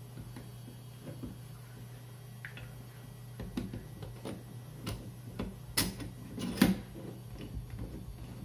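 Scattered light metallic clicks and taps as a steel axle is worked through the aluminium rear suspension linkage of an electric scooter, against its bushings and thrust washers. Two sharper knocks stand out about two-thirds of the way through, over a steady low hum.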